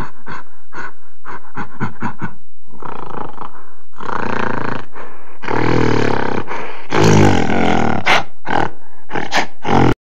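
Animal sound effects: a run of short, quick grunts, about four a second, then several longer, loud roars from about four seconds in.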